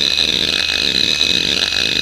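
Samsung WN310820A 1.08 GB single-platter IDE hard drive seeking its heads rapidly back and forth under the hdmotion test program: a fast buzzing seek chatter that rises and falls in a repeating pattern two or three times a second, over the steady high whine of the spinning drive. The drive is in perfect health.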